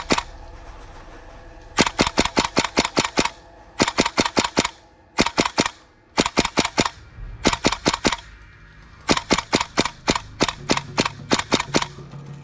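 Gas blowback airsoft rifle, an HPA-fed GHK AK-74, firing about seven short full-auto bursts of sharp cracks, about eight shots a second, with brief pauses between bursts.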